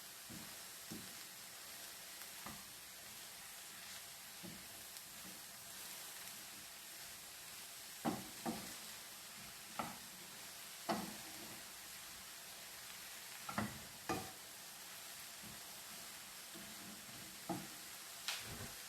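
Vegetables sizzling faintly in coconut oil with a steady hiss. From about halfway through, a spoon knocks and scrapes against the pot several times as they are stirred.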